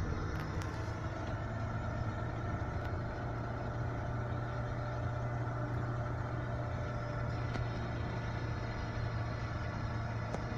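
Car driving along a road, with steady engine and tyre noise heard from inside the cabin and a constant low hum underneath.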